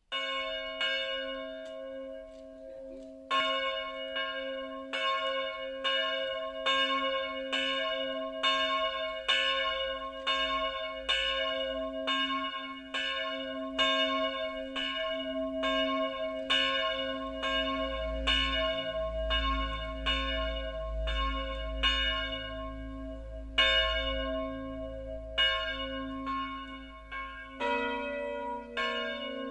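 The bells of St. Martin's church in Fraham, cast by Karl Czudnochowsky in 1950 and tuned to g', b' and c'', ringing together. The ringing starts suddenly at the very beginning and the strikes grow denser about three seconds in, falling into a steady swinging rhythm. The mix of tones changes near the end.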